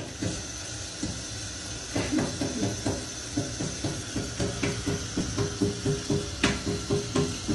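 Water running steadily from a tap, with a bouncy background music track of short repeated notes, about three or four a second, coming in about two seconds in.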